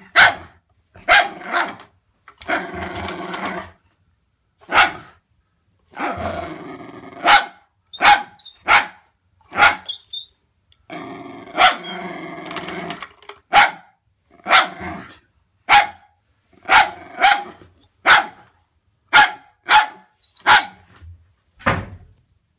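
Wire fox terrier barking at a wooden pull-along toy dog: about twenty short sharp barks, roughly one a second, with three longer growls between them in the first half.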